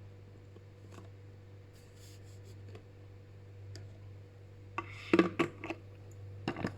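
Small clicks and knocks of a plastic shampoo bottle and bowl being handled, with a quick cluster of louder knocks about five seconds in and another just before the end, over a steady low hum.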